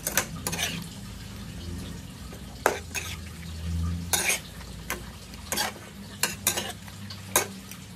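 Metal spatula stirring chicken feet in a metal wok, scraping and knocking against the pan in irregular strokes about once a second, over a low steady hum.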